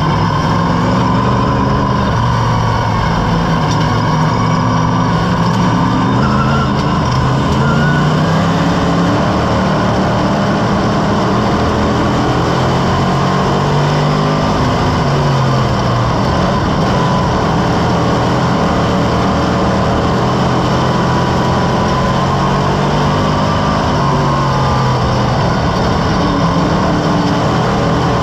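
Sportsman modified race car's engine at racing speed, heard from inside the cockpit, rising and falling in pitch every few seconds as the driver gets on and off the throttle through the turns.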